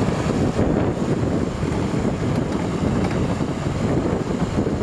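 Tractor running steadily as it tows a boat trailer, with wind buffeting the microphone.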